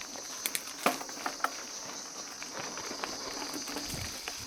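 Steady high-pitched insect drone from the surrounding bush, with a few light clicks and taps in the first second and a half.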